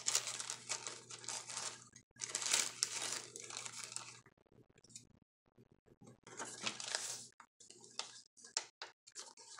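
Paper pages of a handmade junk journal rustling and crinkling as hands handle and turn them. The rustling comes in three spells with a quiet gap in the middle, then a few short, lighter rustles and taps near the end.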